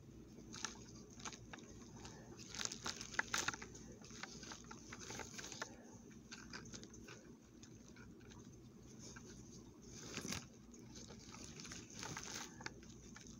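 Faint crinkling and rustling of plastic bubble-wrap packing as a doll is handled and turned over, with scattered small irregular clicks and crackles that come thickest about three seconds in.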